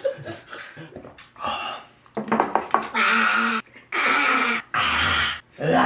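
A man and a woman laughing, the laughs coming in three drawn-out vocal stretches in the second half, after a few light clicks near the start.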